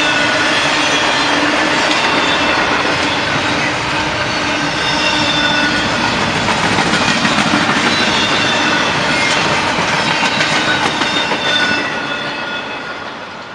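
Double-stack intermodal freight train's well cars rolling past on jointed track, a loud steady rumble of wheels on rail with a high-pitched wheel squeal over it. The end of the train passes about twelve seconds in and the sound fades away.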